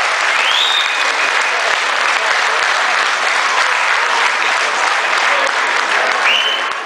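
Crowd applauding steadily, with a few voices over it, starting to fade at the very end.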